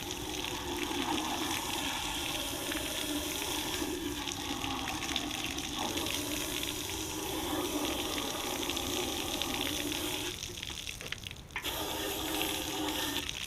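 Pressure-washer spray hitting a bare cast-iron Ford FE V8 engine block, flushing crud out of the cylinders and cooling jackets. The spray runs steadily, stops for about a second near the ten-second mark, then starts again.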